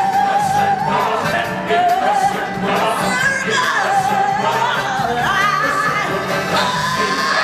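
Singers with a chorus singing long, held notes that step upward, over full backing music.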